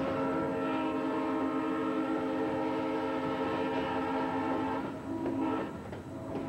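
Diesel locomotive horn sounding one long blast, breaking up about five seconds in, over the rumble and clatter of freight cars rolling past.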